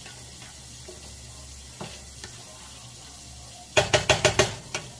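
Diced chicken sizzling faintly in a skillet while it is stirred with a silicone spatula, with a few soft clicks of the spatula. A little under four seconds in, about six quick loud taps of the spatula against the pan.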